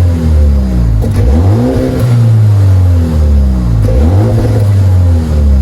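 Turbocharged four-cylinder engine of a 2026 MINI Countryman JCW under hard driving, its revs swinging with the dual-clutch gear changes. The pitch jumps up quickly about a second and a half in and again about four seconds in, each time falling away gradually.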